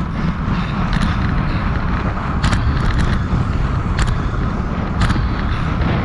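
Wind rushing over a handlebar-mounted GoPro's microphone, with tyre and road noise from a racing road bike at about 30 mph. A few sharp ticks from the bike are scattered through it.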